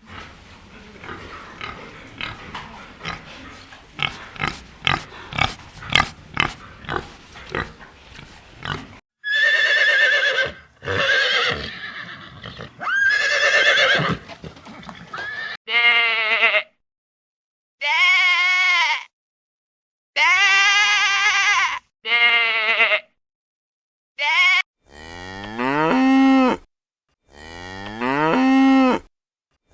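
Farm animal calls edited one after another: a rapid run of clicks and knocks for about the first nine seconds, then a string of separate loud, wavering calls about a second long each, the last three sliding up in pitch as they begin.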